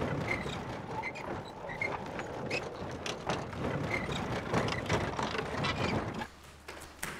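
A horse-drawn covered carriage rattling and creaking in motion: a dense clatter of wood and fittings. It cuts off suddenly about six seconds in, giving way to the quiet of a large room.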